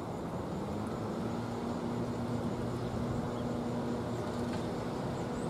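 NJ Transit locomotive running as it approaches at low speed, a steady engine hum with a low drone.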